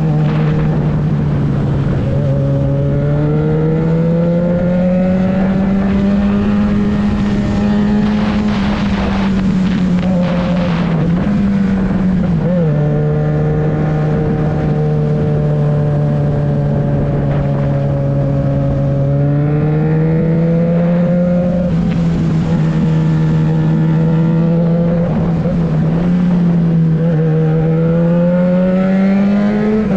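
Yamaha XJ6's 600 cc inline-four running through a LeoVince exhaust with the dB-killer baffle removed. The revs are held fairly steady for several seconds at a time and rise and ease off gently several times, as when riding at a steady pace.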